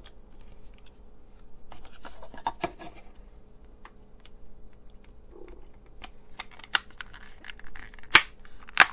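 Plastic case of a Ross RSR-292 pocket radio being handled and pressed together: light rattling and scraping, then three sharp snaps in the second half as the case clips click into place.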